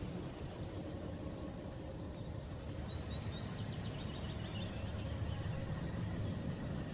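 Outdoor ambience: a steady low rumble, with a small bird's trill of quick high chirps about two seconds in. The trill steps down in pitch and lasts about two seconds.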